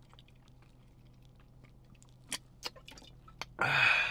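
A person chugging a drink from a can: small swallowing and liquid clicks, then a loud breathy 'ahh' of satisfaction near the end.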